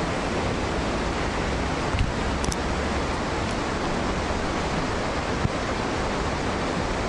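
Steady rushing wind noise on the microphone of a camera carried on a moving bicycle, with an uneven low rumble and a couple of small clicks.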